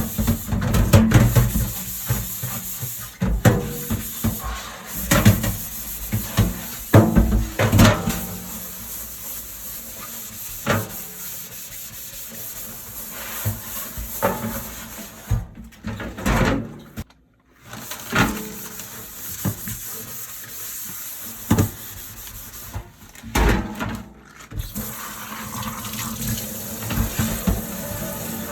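Dishes being washed by hand at a kitchen sink: tap water running steadily, with frequent clinks and knocks of dishes and utensils. The sound drops out briefly about two-thirds of the way through.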